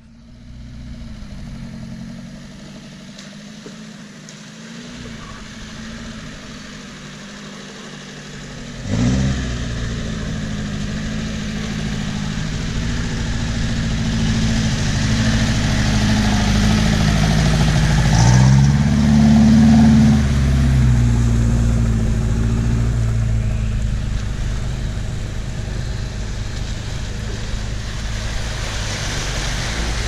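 UAZ Hunter off-roader's engine running as it pushes through deep water on a flooded track, getting suddenly louder about nine seconds in and revving up and down around eighteen to twenty seconds in. Water splashes and sloshes around the wheels as it passes.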